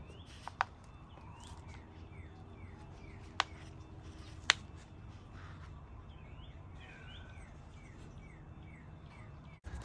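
Wild birds calling over and over with short, high, falling chirps, a couple each second. Three sharp clicks stand out, one near the start and two in the middle.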